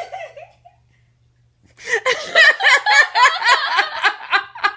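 A young child laughing: a short vocal sound at the start, then, after a pause of over a second, a long run of rapid, high-pitched laughs.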